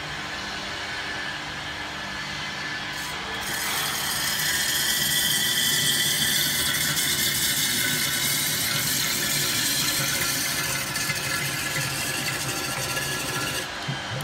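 RX-30L lab vacuum homogenizer mixer running, its motors humming steadily. About three seconds in, a louder, steady, high-pitched hissing whine comes in and drops away shortly before the end.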